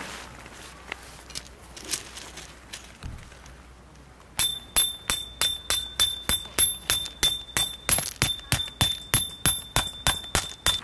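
A few faint clicks, then, about four seconds in, a steady run of sharp metallic strikes, about three a second, each with the same high ringing tone.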